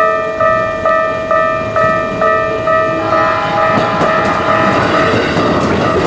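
Japanese level-crossing warning bell ringing in an even ding-ding about twice a second. From about halfway, the noise of a Keikyu commuter train running through the crossing close by builds up over it.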